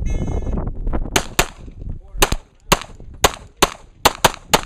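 An electronic shot timer gives its start beep, and about a second later a handgun fires a rapid string of about ten shots, some in quick pairs and some spaced apart, as the shooter engages targets.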